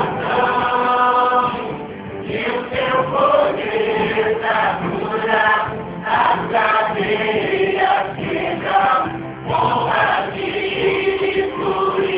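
Gospel worship song: several voices singing together over instrumental backing.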